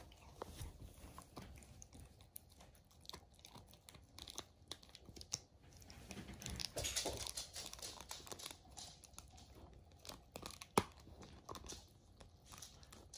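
A dog gnawing a chew bone held in a person's hand: faint crunching and tearing clicks as its teeth work the chew, louder for a moment about halfway through, with one sharp crack late on.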